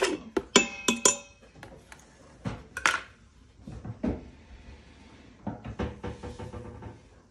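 Utensils knocking and scraping against the Instant Pot's stainless steel inner pot as chopped onions and fennel go in: a quick run of clanks with metallic ringing in the first second or so, then scattered single knocks.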